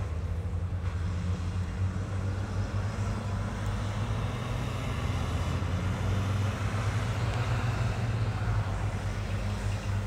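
Heavy construction machinery's diesel engine running steadily with a low hum.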